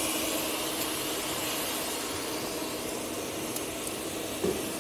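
Steady hiss with a faint low hum of machinery running in a workshop, with a few faint clicks.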